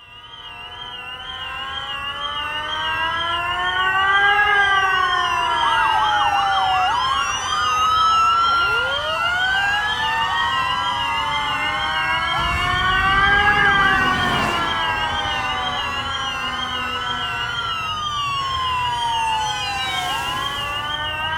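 Several emergency-vehicle sirens sounding at once: a fast, even high warble over slower wails that rise and fall every few seconds. They swell in over the first few seconds, and a low rumble comes up briefly about midway.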